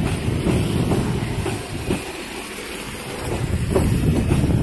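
Passenger train coaches rolling along the track, their steel wheels rumbling and clacking over the rails. The rumble eases for about a second near the middle, then picks up again.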